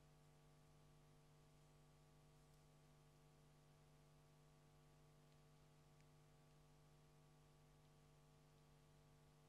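Near silence: a faint steady hum.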